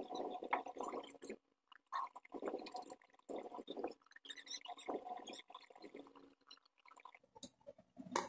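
Hands taking apart a vacuum cleaner motor: irregular clicks, clinks and scraping of small metal and plastic parts being handled and set down, with a sharp click at the start and another near the end.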